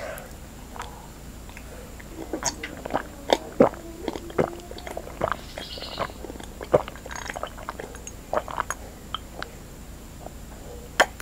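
A person gulping milk from a glass mug close to the microphone: a string of irregular soft swallowing clicks, with a sharper click near the end.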